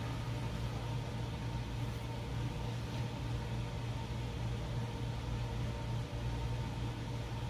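Steady low hum and even rushing noise of a room air-conditioning unit running.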